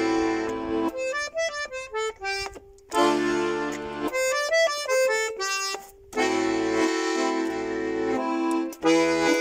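A Russian button accordion (garmon) plays an instrumental introduction to a song. Quick runs of single melody notes alternate with held full chords over bass notes, about three times over.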